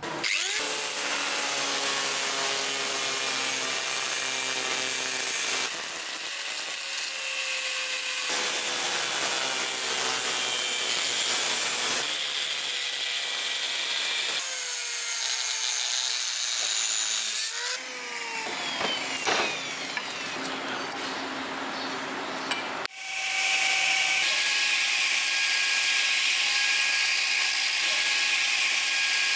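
Angle grinder grinding and cutting a spring-steel sword blade in a series of short takes, its motor whine shifting in pitch between them. About three-quarters of the way in it changes to a belt grinder running steadily as the blade is ground against the belt.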